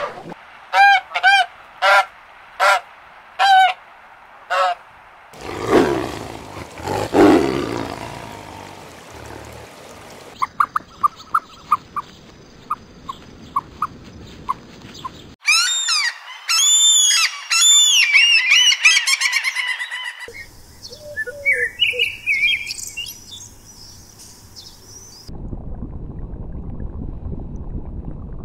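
A string of different animal and bird sounds cut together, changing every four or five seconds. It begins with six short pitched calls in a row, then low rough calls and a run of quick ticks. A burst of busy high bird chirping follows, and it ends in a steady low noise.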